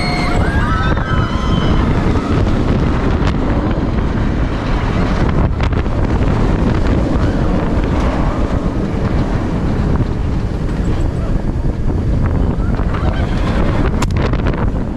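Loud, steady wind rushing over the microphone, as on a fast roller coaster ride, with a few short high cries that rise and fall in the first second or so.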